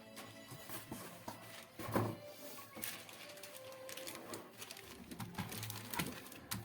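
Quiet background music with scattered light knocks and rustles, the sound of a mechanical keyboard being lifted out of its packaging and handled. The sharpest knock comes about two seconds in.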